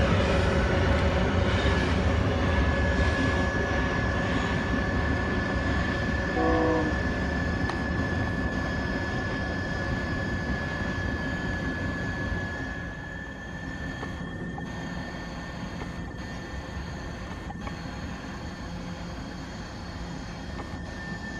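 Loaded freight train rolling past and away, the wagons rumbling and fading steadily, with a steady high-pitched squeal through most of it and a short pitched note about six seconds in.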